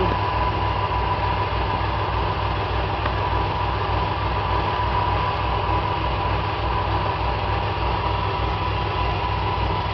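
Steady mechanical background hum with a low throb pulsing several times a second and a faint constant whine. No hammering or cutting is heard.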